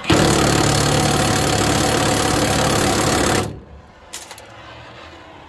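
Cordless impact wrench hammering on a box-mounting bolt nut under a truck for about three and a half seconds, then stopping suddenly. Afterwards a much quieter steady hiss, the flame of an oxy-acetylene cutting torch.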